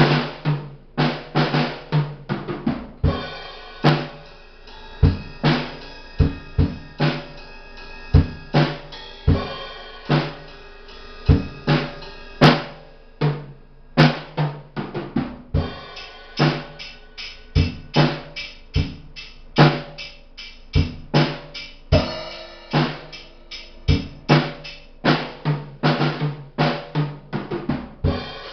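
Tama Imperialstar drum kit played in a steady groove: bass drum and snare strikes, with cymbals ringing over them.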